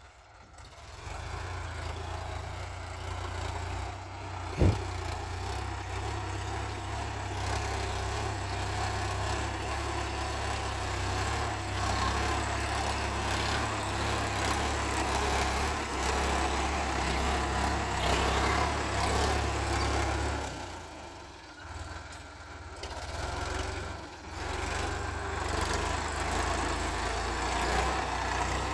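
Sonalika DI 745 Sikander tractor's three-cylinder diesel engine running under load as it drags a rear levelling blade through loose soil. The engine builds up over the first couple of seconds and eases off for a few seconds past the middle before coming back. There is one sharp knock about five seconds in.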